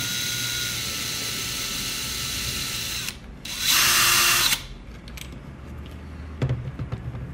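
DeWalt cordless drill/driver driving screws into a steering wheel's hub assembly. It runs steadily for about three seconds, stops, then gives a second, louder burst of about a second. A few light clicks and a knock from handling the parts follow.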